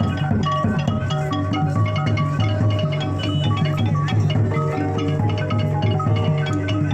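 Music: a quick melody of short mallet-percussion notes over a steady low beat.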